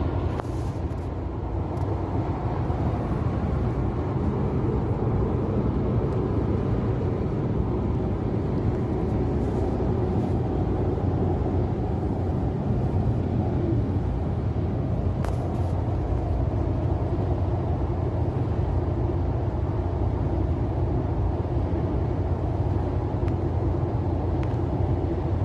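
Steady road noise inside a car's cabin while cruising on an expressway: a low, even rumble of tyres and engine.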